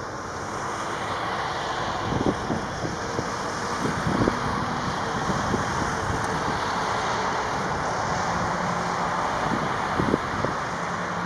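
Airbus A340-300's four CFM56 turbofan engines running at taxi power: a steady, even rush that swells slightly over the first two seconds. A few low thumps of wind buffeting the microphone come through it.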